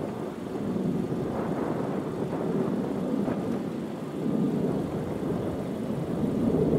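Jet airliner engines rumbling steadily, swelling a little in the second half.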